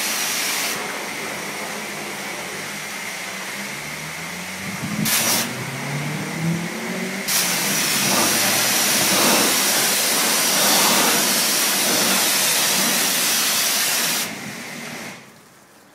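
High-pressure car wash wand spraying water against a car, a steady loud hiss whose brightness changes as the jet moves. The spray stops about a second before the end.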